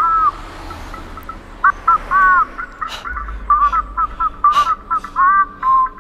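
Background music: a high, whistle-like melody of short notes that rise and fall, repeating the same figure over a steady tone, with sharp clicks scattered through it and a low drone coming in about halfway.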